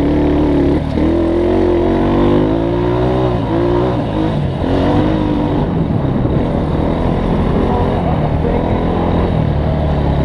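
Off-road vehicle's engine running on a dirt trail under changing throttle. Its pitch climbs about a second in, falls away over the next few seconds, and keeps rising and dropping after that.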